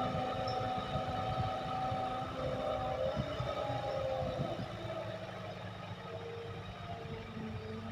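Hydraulic excavator working: a steady diesel engine rumble with several held tones from the engine and hydraulics that shift in pitch as the load changes, about halfway through.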